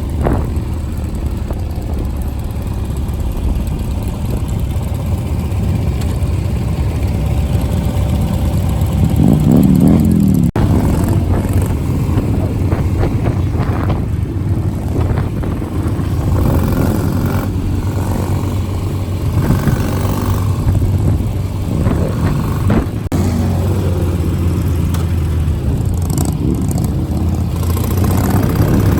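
Motorcycle engines running during a mass motorcycle ride: a steady low engine drone heard from a Ural sidecar motorcycle, with other motorcycles revving around it. One loud rev rises and falls about nine seconds in, and smaller revs come and go later on.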